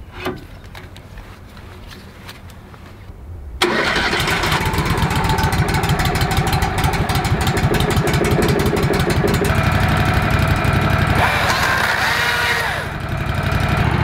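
A sharp click from the log clamp being set on the Woodmizer LX 150 sawmill. Then, about three and a half seconds in, the sawmill's engine starts abruptly and runs steadily, with a brief change in pitch and level near the end.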